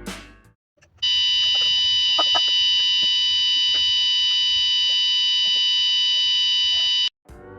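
Alarm buzzer of an Arduino Nano alarm clock going off: one continuous high-pitched electronic tone that starts abruptly about a second in, holds steady for about six seconds, then cuts off suddenly.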